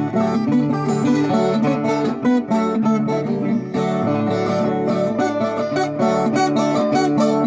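Viola caipira with a jacarandá (Brazilian rosewood) body played solo: a continuous run of plucked notes mixed with strummed chords.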